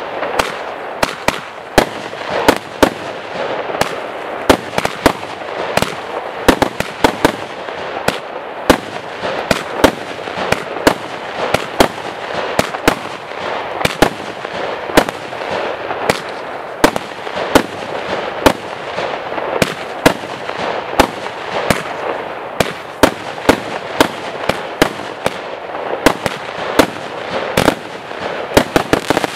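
A 36-shot, 20 mm black-powder cake (roman candle battery) firing: a steady run of sharp pops as the shots launch and burst, about two a second, over a continuous hiss and crackle.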